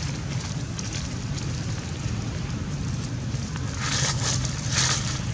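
Dry fallen leaves rustling and crackling, in louder bursts about four and five seconds in, over a steady low rumble.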